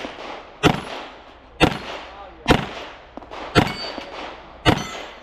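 Modified Smith & Wesson 686-6 revolver fired double action, five shots about a second apart, each followed by the clang of a steel plate being hit, with metallic ringing after the last two.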